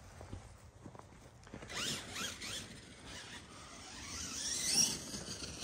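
Losi King Sling RC mega truck's electric motor, run on a 3S LiPo, whining up and down in pitch as the truck speeds up and slows. The whine is faint at first, starts about two seconds in and grows louder towards the end.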